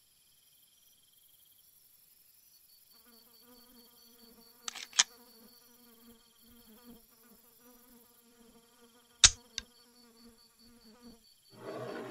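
Faint insect ambience: a fly buzzing with a wavering drone over a steady, high, pulsing insect trill. Two pairs of sharp clicks cut through about 5 s and 9 s in, and a louder noisy sound begins near the end.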